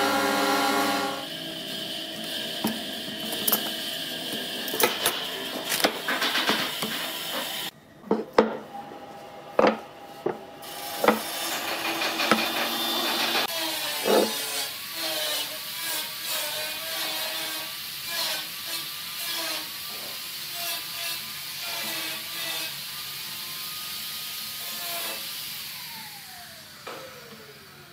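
Hand work on a glued wooden block: clamp screws being turned, sandpaper rubbing on wood, and a glue stick scraping across the surface in short strokes, with scattered knocks of wood and tools.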